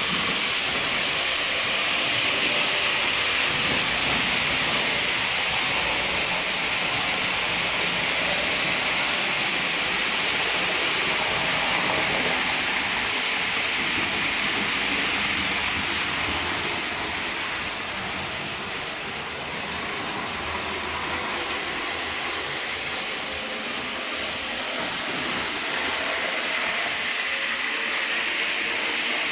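Märklin Delta BR41 HO-scale model steam locomotive and its coaches running on three-rail track: a steady whirring of the motor and rolling of the wheels on the rails, dipping a little in loudness about two-thirds of the way through.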